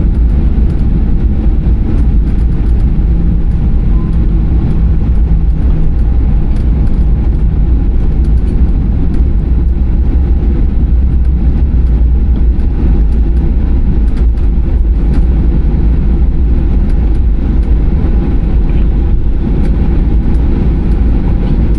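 Steady low rumble of a Boeing 737-800's engines and airflow heard inside the cabin, with faint scattered rattles throughout.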